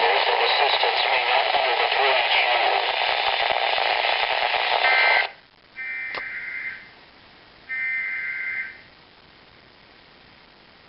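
Loud radio static hiss that cuts off about five seconds in. It is followed by Emergency Alert System SAME data bursts: short two-tone digital warbles, each about a second long and a second apart, the end-of-message code that closes an EAS alert.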